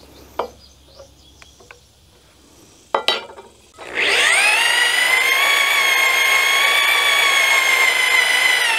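A few light clicks, then about four seconds in a corded power drill spins up and runs steadily with a high whine, its auger bit boring a peg hole down into a wooden rafter.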